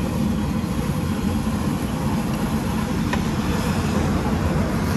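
Steady low background rumble, with a faint click about three seconds in.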